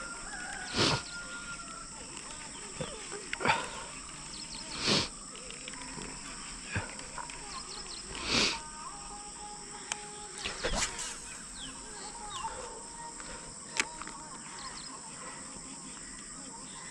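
Steady insect chirring with faint bird calls, broken by short swishing splashes every couple of seconds as a topwater frog lure is twitched across the water.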